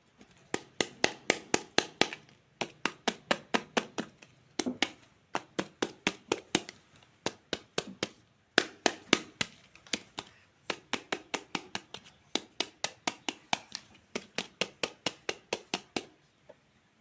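Rapid sharp taps, about four to five a second, in runs of several with short pauses between them.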